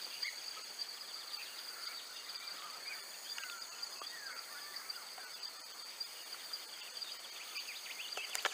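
Outdoor dusk chorus: a steady high insect drone with many short, squeaky animal calls scattered through it, and a single sharp click near the end.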